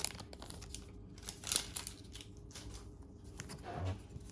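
A pack of trading cards being handled: the wrapper crinkling faintly and the cards sliding and rustling, with a brief louder rustle about a second and a half in and a soft thump near the end.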